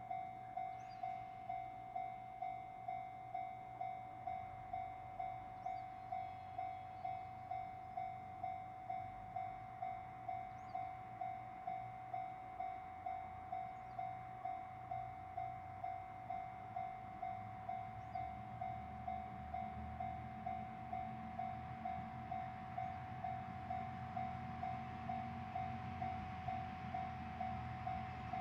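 Japanese level-crossing warning bell ringing steadily at about two strikes a second, signalling an approaching train. Toward the end, the low rumble of the approaching train rises beneath it.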